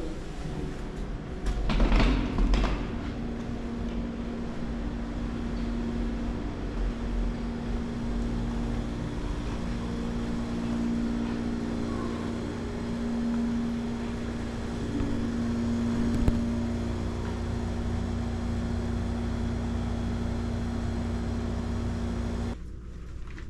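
Steady mechanical hum with a held low tone, with a brief louder clatter about two seconds in; the hum cuts off abruptly near the end.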